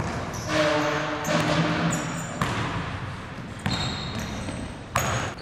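Basketball bouncing on a hardwood gym floor: a few separate sharp bounces, ringing in the large hall.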